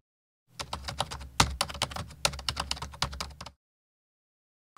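A quick run of irregular clicks and taps over a low hum, starting about half a second in and stopping abruptly after about three seconds.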